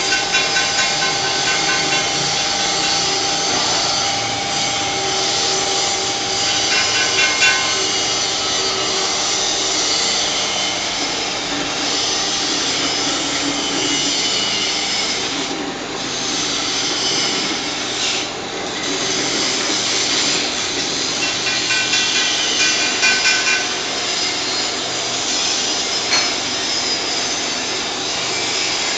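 Plastic cup ring-cutting machine running steadily as it trims the rings off plastic cups, a dense continuous mechanical noise with brief tonal whines at a few points.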